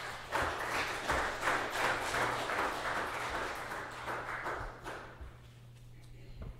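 Church congregation applauding, dying away about five seconds in, followed by a single thump near the end.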